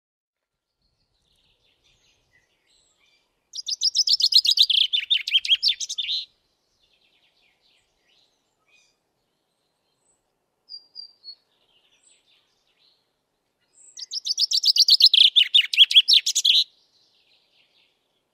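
Common chaffinch singing: two song phrases about ten seconds apart, each a rapid run of notes falling in pitch and lasting roughly two and a half seconds. Three short high chirps come between them.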